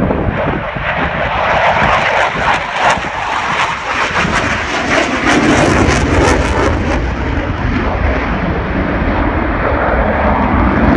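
Fixed-wing aircraft flying past, a loud continuous engine rush with a crackle in the middle that turns deeper toward the end.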